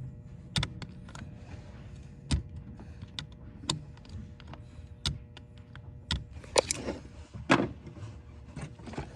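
Irregular clicks and clunks of hand tools and metal parts being handled, about a dozen over several seconds, with a couple of short scraping sounds near the end.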